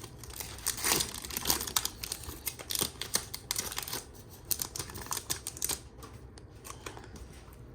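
Trading-card pack being opened by hand: a foil wrapper crinkling and cards shuffled and flicked, a quick run of small clicks and rustles that thins out over the last few seconds.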